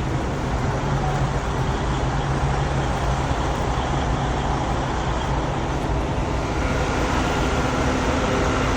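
Steady vehicle engine and traffic noise, a low engine drone running under it.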